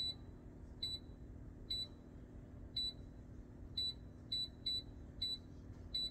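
Air fryer's touch control panel beeping as its buttons are pressed to set it: about nine short, high beeps at uneven intervals.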